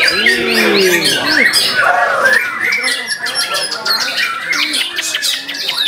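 White-rumped shamas singing in competition: a dense tangle of overlapping quick whistles, rapid trills and harsh chattering notes from several caged birds at once.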